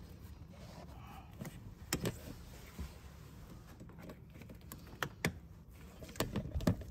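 Hand work on a power steering hose and its clamp: a few sharp clicks and knocks, one about two seconds in, two about five seconds in, and a cluster near the end.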